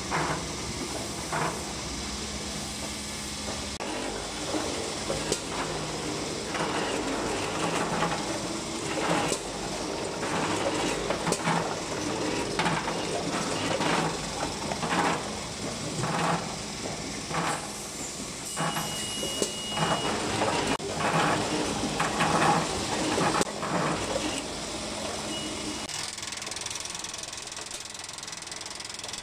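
Multihead weigher running on a biscuit packaging line: a steady machine hum with rattling clatter about once a second, as the hopper gates open and biscuits tumble through the steel chutes. Near the end the low hum falls away and the clatter thins out.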